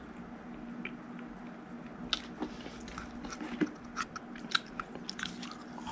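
Close, irregular sharp clicks and crunches, a couple to a few a second, starting about two seconds in over a low steady hum.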